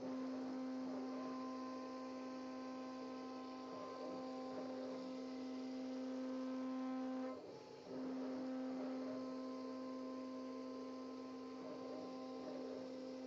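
CNC router spindle running at a steady speed, giving an even, pitched hum. The hum cuts out for about half a second just past halfway, then resumes unchanged.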